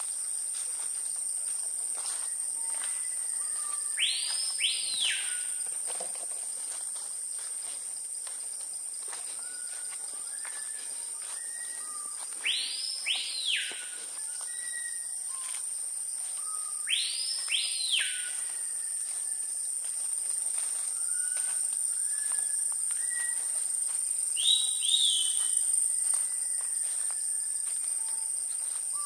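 Tropical rainforest ambience: a steady high-pitched insect chorus, with a loud two-part whistled call sweeping up and down three times and a shorter one near the end, and soft short whistles between.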